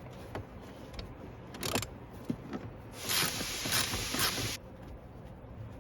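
Hands and a tool working under a car's dash: scattered small clicks, then a rasping scrape lasting about a second and a half.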